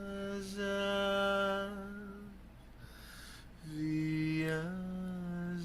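A man singing unaccompanied, holding a long note, then taking a breath. He holds another note that steps up in pitch about two-thirds of the way through.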